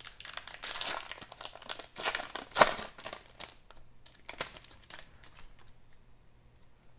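A 1992-93 SkyBox basketball card pack wrapper crinkling and tearing as it is pulled open by hand, with one sharp crackle between two and three seconds in. It fades to faint rustles near the end.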